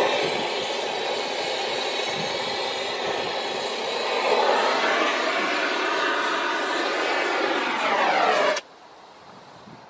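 A steady, loud machine running noise with a faint whine in it, which cuts off suddenly near the end.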